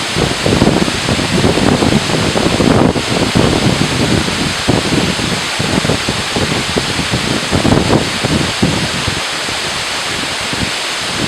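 Steady roar of a waterfall, with irregular low gusts of wind buffeting the microphone.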